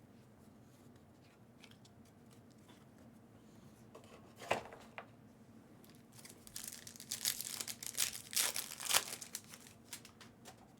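Foil trading-card pack wrapper being torn open and crinkled: a few faint ticks, a sharp tear about four and a half seconds in, then a longer spell of crinkling and ripping about two thirds of the way through.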